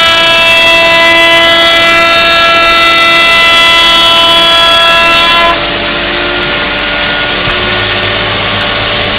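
Milling machine spindle running at speed on MDF panels, a loud, steady high whine with overtones. About five and a half seconds in, the sound changes abruptly to a noisier, duller machine sound with a low hum.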